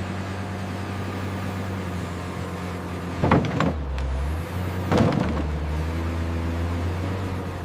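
Sawmill machinery running with a steady hum, with two short bursts of clattering knocks, about three and five seconds in.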